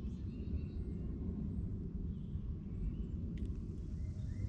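Quiet lakeside ambience: a steady low rumble with a few faint high bird chirps, and one light click about three and a half seconds in.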